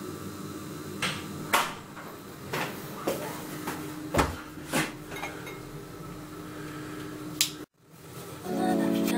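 Several sharp clicks and knocks, like things being picked up and set down in a small tiled bathroom, over a steady hum. Music fades in near the end.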